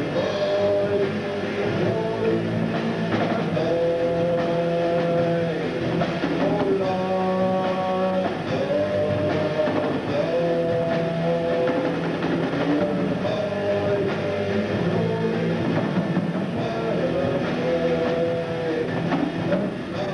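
Live rock band playing: electric guitar and bass, with a melody of long held notes that slide from pitch to pitch every second or two over a dense, steady backing.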